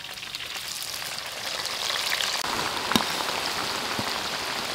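Sliced shallots going into a wok of hot oil: the oil sizzles and crackles with a dense, steady hiss that grows louder about a second and a half in. There is a single sharp tap about three seconds in.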